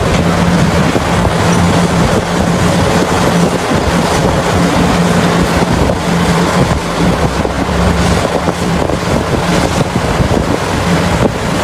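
Heavy diesel mining machinery running steadily under load, a dense mechanical noise over a low engine hum that drops out briefly a few times.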